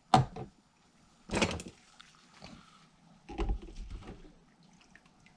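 Ultrasonic cleaner's lid and tank being handled as the cleaned Solex carburetor parts are lifted out: three short knocks and clatters, about a second in, again near the middle, and a lower one later.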